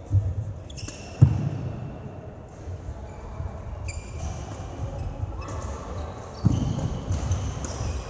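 A ball game in play: three sharp thuds of a ball being struck or bouncing, the loudest about a second in, with short high squeaks in between.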